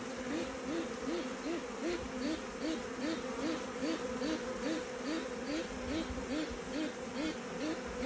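Honey bee swarm buzzing on the ground, a steady hum from thousands of wings. A regular chirping pulse, about two and a half a second, runs through it.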